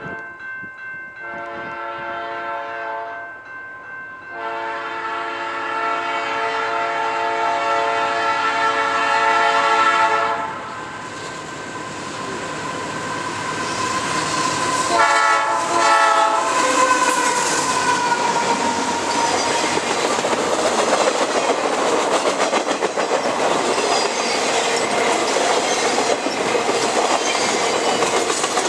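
Diesel freight locomotive's Nathan P3 air horn blowing for a crossing: several chord blasts, the middle one long, then a quick run of short toots and a last blast that drops in pitch as the locomotive passes. After that comes the rumble and clickety-clack of loaded flatcars rolling over the rail joints.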